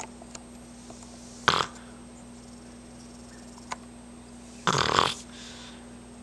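Boston Terrier snoring in its sleep: a short snore about a second and a half in, then a longer snore near the end.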